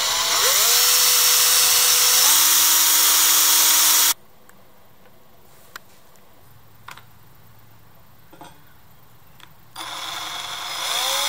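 Cordless drill whining as it spins up and bores through a metal mounting tab, running steadily for about four seconds before stopping abruptly. A few faint clicks follow, then the drill starts up again near the end on a second hole.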